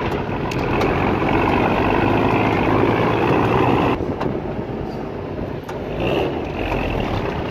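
Mercedes-Benz Unimog truck running as it drives over rough, grassy ground, heard from its open cargo bed. The noise drops a little about four seconds in and builds again near the end.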